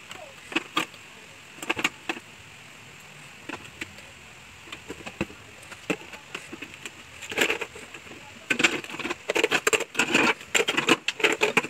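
Plastic baby-bottle and pump parts clinking and clattering against a stainless steel wire rack as they are handled inside a UV sterilizer. Scattered single knocks at first, then a dense run of clatter near the end.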